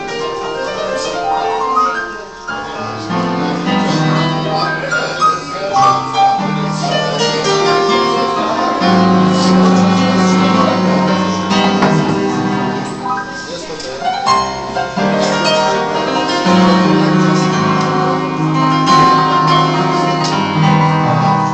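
Live electronic keyboard playing a melody over held chords.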